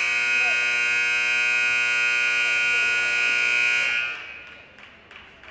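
Gym scoreboard buzzer sounding one long, steady blast that cuts off about four seconds in.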